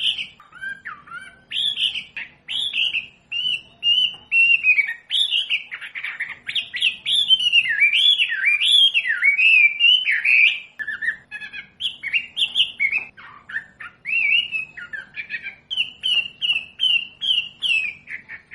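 Wambi bird singing a continuous run of clear whistled notes. Short phrases slide up and down and repeat, loud throughout.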